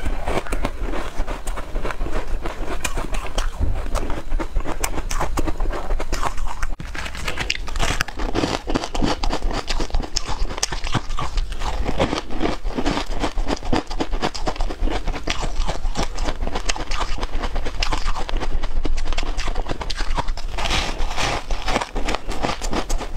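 Close-miked chewing and crunching of crisp buckwheat snowflake-crisp pieces, a dense, irregular run of crunches.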